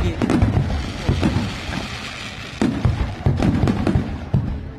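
Thunder rumbling and cracking in a quick irregular run of deep booms over steady rain hiss, easing off near the end.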